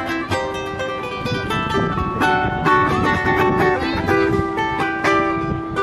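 Instrumental music played on plucked strings: a light melody of short plucked notes that keeps running without a break.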